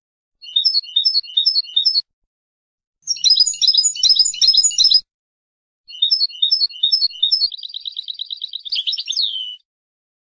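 European goldfinch singing in three phrases with short pauses between. The first is a run of repeated chirps, the second a burst of dense twittering, and the third more repeated chirps running into a fast, even trill that ends in a falling note.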